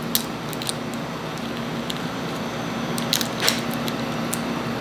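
Shell being peeled off a large raw prawn by hand: scattered small clicks and crackles as the shell segments snap and pull away from the flesh, over a steady low hum.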